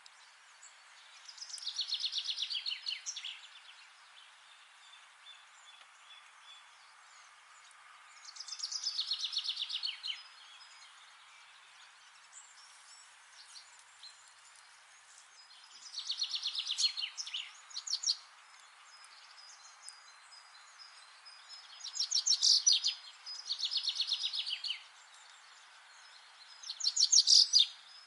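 A songbird singing a repeated song: about six phrases, each a fast trill of rapid notes sliding down in pitch and lasting one to two seconds, with pauses of a few seconds between them. A steady low hiss of background noise runs underneath.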